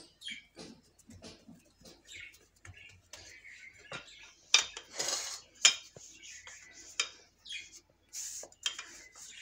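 A wooden rolling pin and hands knocking and tapping on a marble countertop while dough is pressed flat, with a few louder sharp knocks in the middle and a short rubbing sound.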